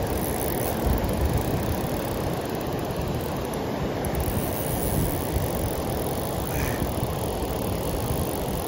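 Steady rushing of river water pouring over a low dam, an even roar with a low rumble.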